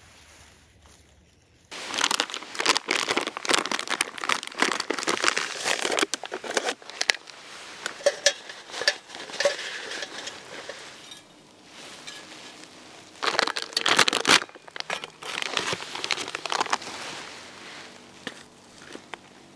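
Crinkling, crackling handling noise that starts suddenly about two seconds in, comes in dense bursts, and pauses briefly around two-thirds of the way through before picking up again.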